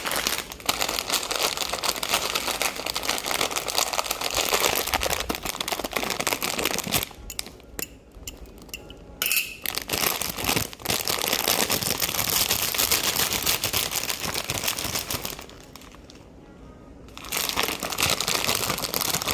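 Plastic packaging crinkling and rustling close to the microphone, with two brief pauses.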